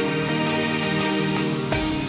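Background music of held, sustained tones; a deep bass beat comes in near the end.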